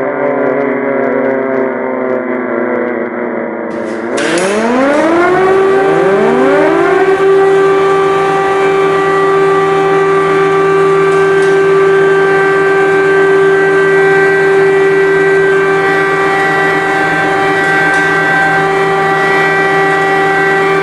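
Civil-defence air-raid siren: a wail falling in pitch, then about four seconds in it winds up again, rising over a few seconds to a steady held tone.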